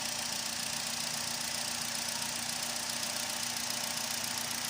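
Vehicle engine idling steadily and evenly after the fuel pump and pressure regulator O-rings were replaced to stop fuel pressure bleeding off, the cause of its hard starting; it runs smoothly.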